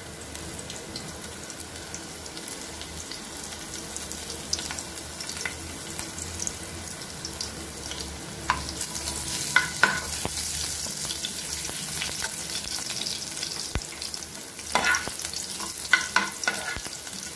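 Chopped garlic and ginger sizzling steadily in hot oil in a frying pan. A metal spoon scrapes and clinks against the pan a few times in the second half. The garlic and ginger are being fried to cook off their raw smell.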